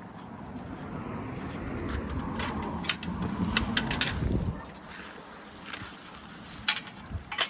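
Wind buffeting the microphone, building for about four seconds and then dropping away, with a few sharp clicks scattered through it.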